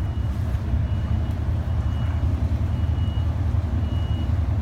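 Charter fishing boat's engine running with a steady low rumble, over which a short high electronic beep sounds about once a second.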